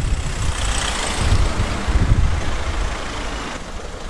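Street traffic: a steady low rumble of road vehicles, with one going by and loudest about one to two seconds in.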